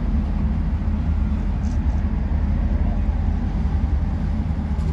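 Passenger ferry under way: a steady low engine rumble with an even hiss of noise over it.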